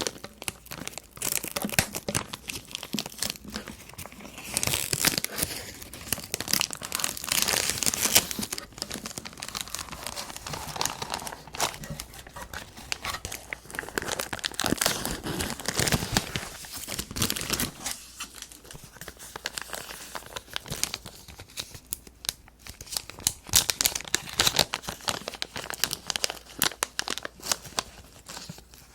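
Keyboard packaging being unwrapped by hand: crinkling and tearing of wrapping, close up, in bursts with short lulls between.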